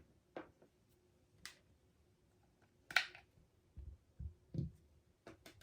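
Faint, scattered clicks and soft knocks of hands handling cables and devices, the loudest a sharp click about three seconds in.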